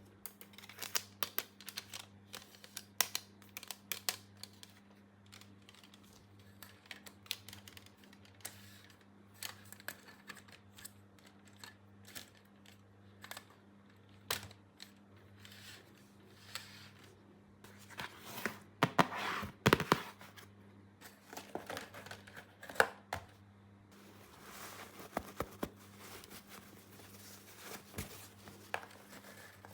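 Small plastic toy pieces and packaging handled close up: scattered sharp clicks and taps, with short stretches of rustling and crinkling and the loudest cluster of clicks about two-thirds of the way through. A faint steady hum sits underneath.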